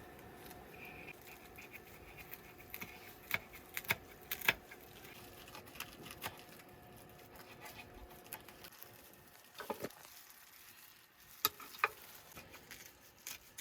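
Scattered light clicks and taps of ingredients and utensils being handled while napa cabbage and beef are layered for mille-feuille nabe, with a faint steady hum underneath. The taps come in two clusters, one a few seconds in and one about two-thirds of the way through.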